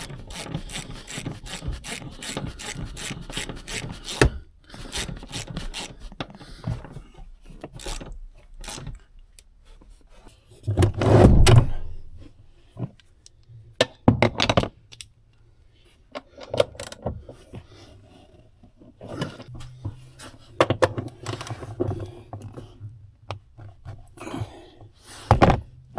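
Hand ratchet clicking in quick runs, with scrapes and knocks of metal parts and a few loud thumps near the middle and near the end, as a vehicle seat is bolted back into place.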